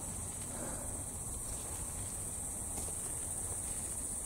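Steady, high-pitched insect chorus: a continuous trill that does not break, over a faint low background hiss.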